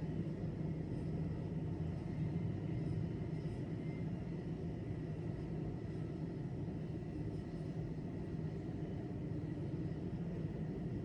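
Steady low rumble of railway station and city ambience, a constant low hum with a faint steady high whine over it and no distinct events.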